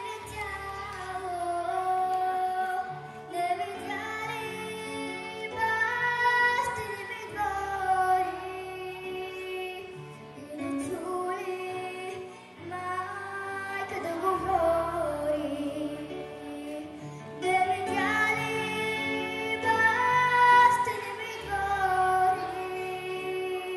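A young girl singing a solo into a microphone, with long held notes, over a recorded backing track with a regular bass line.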